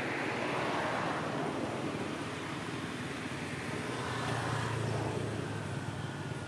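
Road traffic noise, with a motor vehicle's engine hum swelling about four seconds in as it passes.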